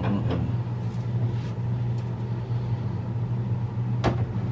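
Steady low hum, with a few faint knocks and a sharper knock about four seconds in as a flat-screen TV is handled on its stand.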